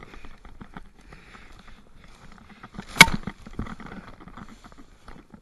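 Footsteps rustling and crunching through dry fallen oak leaves, with one sharp, loud crack about three seconds in.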